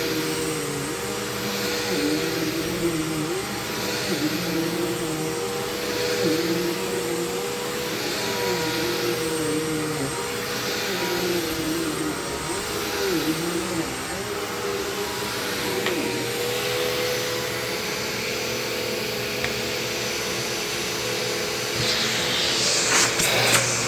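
Bissell CleanView Swivel Pet upright bagless vacuum cleaner running, its motor holding a steady tone while a second tone rises and falls in a regular cycle, about once every second and a half, for the first two-thirds. The running then steadies, and a burst of rattling clicks comes near the end.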